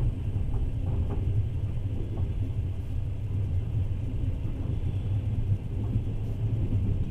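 Passenger train running along the track, a steady low rumble of the wheels and carriage heard from inside the car.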